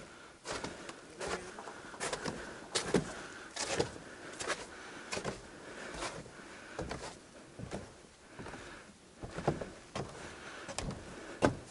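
Footsteps of hikers walking a trail: a steady run of short steps, a little more than one a second.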